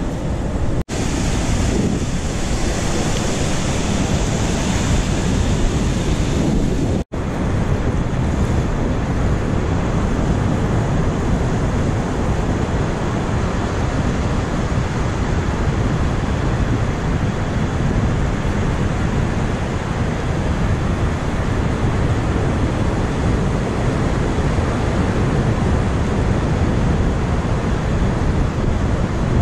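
Surf washing over sand at the water's edge, with wind rumbling on the microphone: a steady, loud noise that drops out briefly twice in the first seven seconds.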